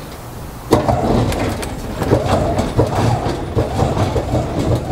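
Box truck's powered liftgate running as it lowers under the heavy compressor load: it starts abruptly about a second in, a low hum with continuous rattling and clanking from the platform.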